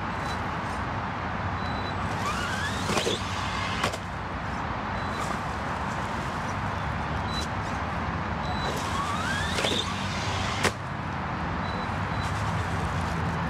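1/8-scale ARRMA Typhon RC buggy's brushless motor whining up in pitch twice, each rise followed about a second later by a single sharp knock, over steady noise.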